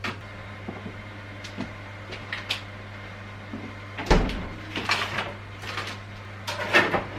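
Household knocking and clattering, like cupboard doors and objects being handled: light clicks, a heavier thump about four seconds in, then a cluster of knocks near the end, over a steady low hum.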